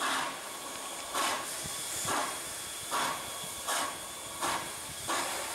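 Steam locomotive letting off steam: a steady hiss with short puffs of steam about every second.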